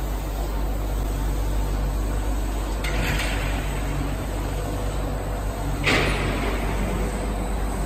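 Automatic painting line for fiber cement boards running: a steady machinery hum with a low drone. Two short hisses of air cut through, about three and six seconds in, the second louder.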